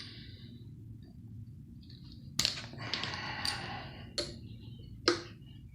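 Hand tools clinking and scraping against the metal pump casing: three sharp metallic knocks, the first about two seconds in, with a short scraping rattle after it.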